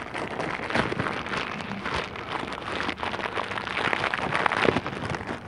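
Clear plastic parts bag of spare seals crinkling and rustling as gloved hands handle and dig through it, with a dense run of small crackles.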